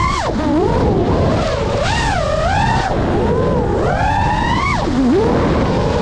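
FPV racing quadcopter's electric motors and propellers whining, the pitch swooping up and down with the throttle during aerobatic flips; it falls sharply twice, just after the start and near the end, and climbs straight back up. A steady rush of wind runs underneath.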